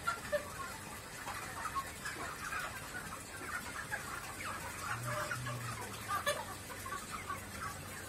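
A large flock of broiler chickens, 18 to 40 days old, clucking and cheeping all at once in a steady chatter of many short overlapping calls.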